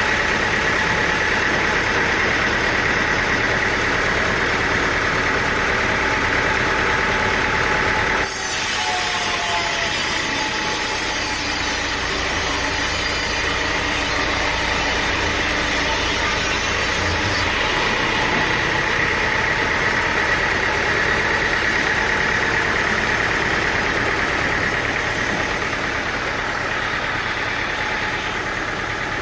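An engine running steadily. About eight seconds in the sound cuts abruptly to a slightly different, equally steady running sound.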